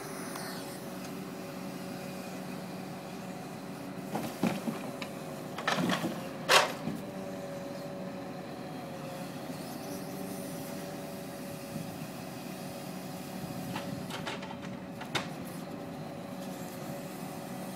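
Log lorry's engine running steadily to power its timber crane's hydraulics, a constant hum. A few sharp knocks and clatters break in about four to seven seconds in, and once more near the end.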